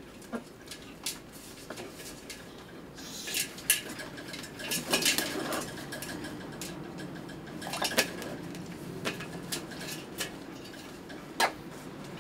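Blue-and-yellow macaw bathing in a metal tub: water splashing as it ducks and flaps, with scattered sharp clinks and knocks against the tub and a longer splashy stretch about five seconds in.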